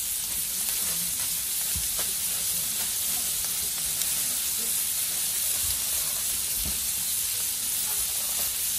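Smash-burger patties sizzling on a hot Blackstone flat-top griddle, a steady frying hiss, with a few faint knocks.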